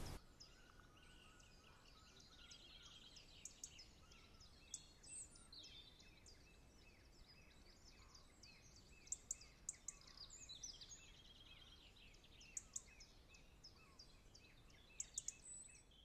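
Faint songbirds chirping and trilling, many quick high notes overlapping, with a few sharper calls near the middle and near the end.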